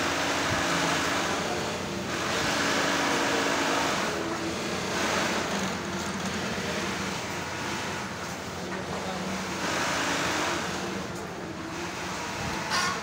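Typical single-needle industrial sewing machine stitching bag fabric in several short runs, each a second or two long with brief pauses between, over a steady machinery hum.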